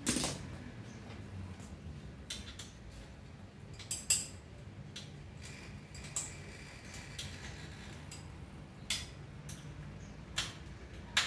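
Irregular metallic clicks and clinks of tools and parts being handled on a bicycle frame during an overhaul, a handful of sharper knocks among lighter ticks, over a low steady hum.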